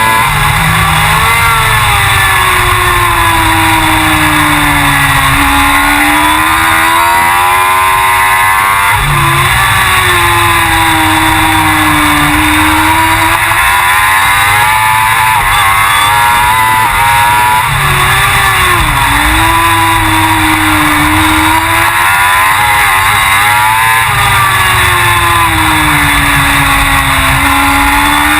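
Suzuki GSX-R1000 superbike's inline-four racing engine at speed on track, its note climbing through the revs and falling sharply at gear changes, several times, with the revs swinging up and down through the corners.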